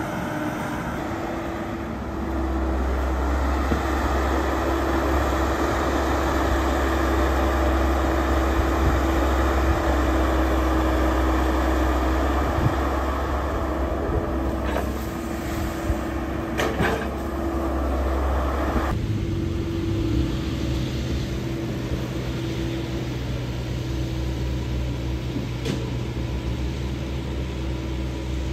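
Caterpillar hydraulic excavator's diesel engine running under load while it digs soil: a steady drone with a constant hum and a deep rumble. A few sharp knocks come about halfway through. About two-thirds of the way in, the rushing noise drops away and the lower engine drone carries on.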